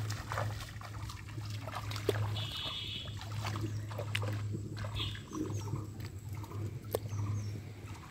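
Legs wading through shallow flood water in a pond, with irregular splashing and sloshing. A steady low hum runs underneath and breaks off briefly a few times.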